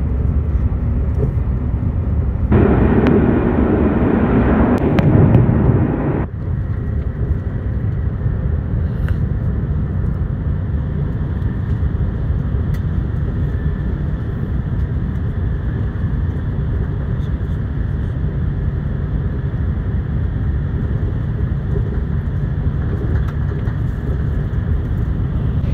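Cabin noise of an ICE high-speed train running at speed: a steady low rumble and rush. About two and a half seconds in it swells into a louder rushing that lasts about three and a half seconds, then drops back sharply to the steady rumble.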